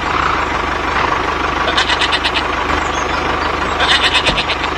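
Diesel tractor engine running steadily with a low, even beat. Two short bursts of rapid ticking come about two and four seconds in.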